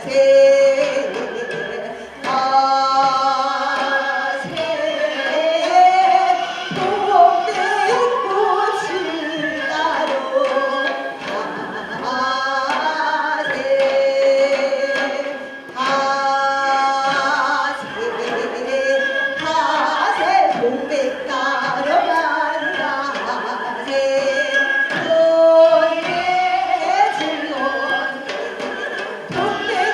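A female Korean folk singer singing a sin-minyo (new folk song) in traditional minyo style, holding notes with a wide, wavering vibrato and bending pitch between phrases.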